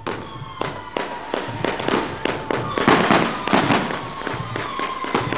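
Firecrackers going off in a rapid, irregular string of sharp bangs, several a second.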